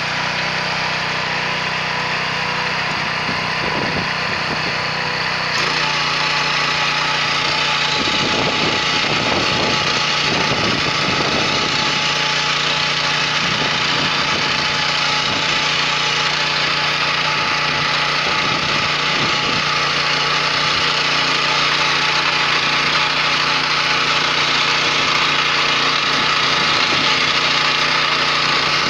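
WEIMA 1000N walk-behind tractor's single-cylinder engine running steadily under load while its rotary tiller tines churn through a mustard crop. It gets slightly louder about five to six seconds in.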